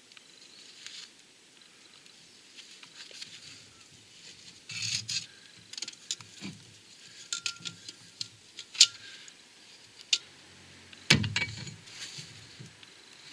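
Scattered light metallic clicks, taps and scrapes as a clutch plate is handled and fitted against the flywheel, with a heavier knock about eleven seconds in.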